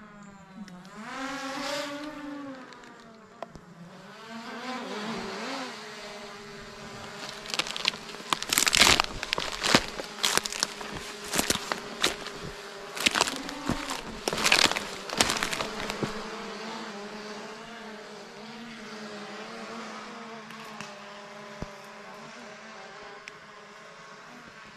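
Small quadcopter drone's propellers buzzing as it lifts off, the pitch climbing and wavering for the first few seconds, then settling into a steady hover. In the middle there is a string of loud, sharp noise bursts.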